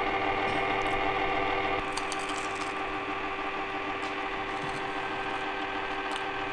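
Small electric chocolate fountain's motor running with a steady hum, a little quieter from about two seconds in.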